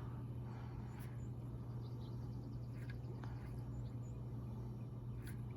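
Quiet open-air ambience: faint bird chirps over a steady low hum, with a few faint clicks.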